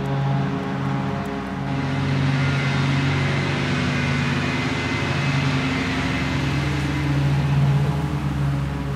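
Gas-powered backpack leaf blower running: a steady engine drone under a rush of blown air that swells about two seconds in and eases off near the end.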